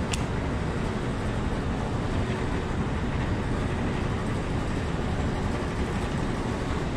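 Steady low rumbling noise with no clear pitch, and one short sharp click right at the start.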